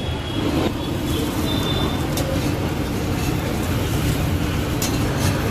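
Steady low rumble of street traffic, with a few short sharp clicks.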